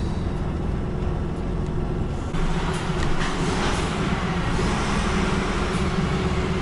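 Lorry's diesel engine running at low speed, heard from inside the cab as a steady low hum. About two and a half seconds in, a louder rushing noise joins it.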